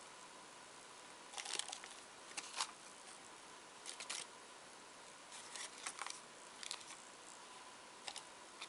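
A brush dabbing and smoothing tissue paper onto a glass jar: a series of short, faint, scratchy rustles at irregular intervals.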